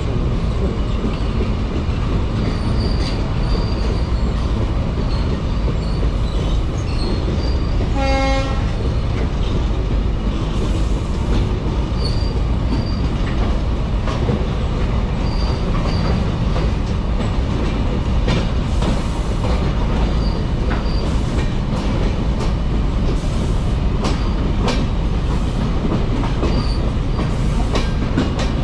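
Train running steadily at speed: a continuous low rumble of wheels on rails with faint ticks and squeaks. A short horn blast sounds about eight seconds in.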